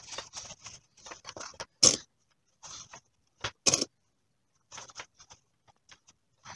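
Cotton fabric rustling in short, irregular bursts as two layers are handled and pinned together along a curved edge, with two louder, sharper rustles about two seconds and nearly four seconds in.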